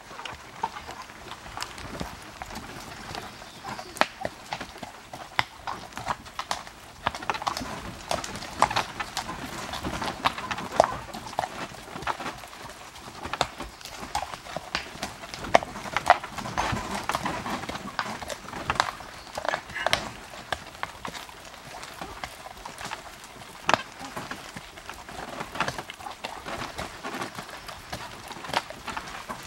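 A horse's hooves clip-clopping along a dirt trail while it pulls a light two-wheeled cart, mixed with irregular clicks and knocks.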